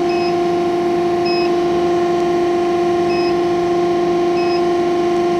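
CNC pipe bending machine standing idle with a steady hum, its hydraulic system running. Four short high beeps sound over it at uneven intervals.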